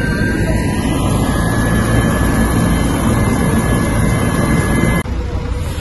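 Helicopter's turbine engine and rotor running: a loud, steady noise with a thin high whine over it. The sound changes abruptly about five seconds in, where the whine drops out.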